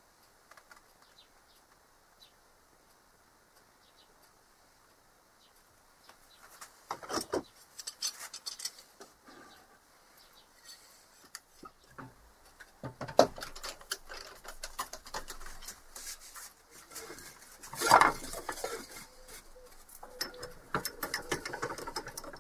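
Near silence for about six seconds, then scattered clicks, clacks and knocks of wood and metal handling as a segmented wooden vase is fitted into a wood lathe's chuck and the chuck is tightened with a bar. The loudest knocks come about 13 and 18 seconds in.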